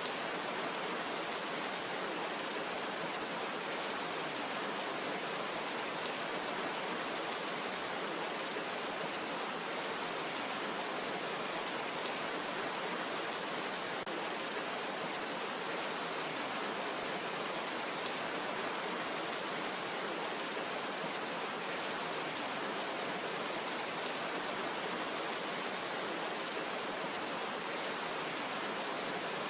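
Steady rain falling, an even hiss of drops with no pauses or changes.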